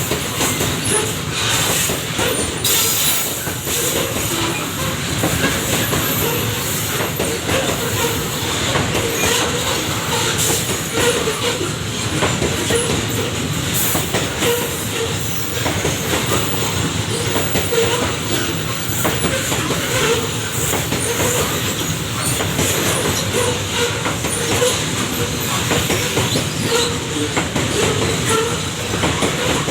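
Babaranjang long coal train's wagons rolling along the track, clattering steadily over the rail joints, with some wheel squeal.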